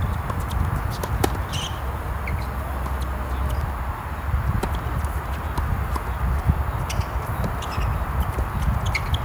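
Tennis balls being hit by rackets and bouncing on a hard court: a string of short sharp pops, irregularly spaced, over a steady low rumble.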